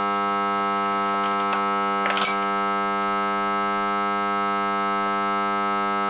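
Steady electrical buzz with many overtones, unchanging throughout. A couple of brief metallic clicks and rattles, about one and a half and two seconds in, as the compression gauge and its hose are handled.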